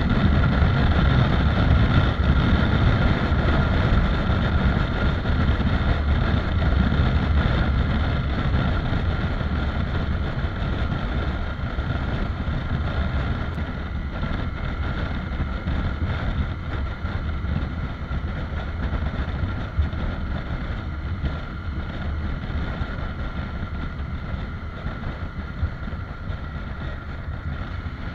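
Honda CRF250 Rally's single-cylinder engine running at road speed under wind rush on the microphone, slowly getting quieter as the motorcycle slows from about 90 to about 60 km/h.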